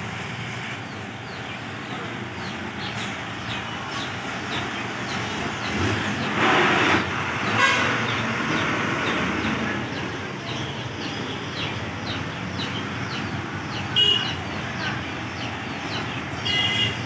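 Steady road-traffic noise with a few short vehicle-horn toots, the clearest about two-thirds of the way through and near the end.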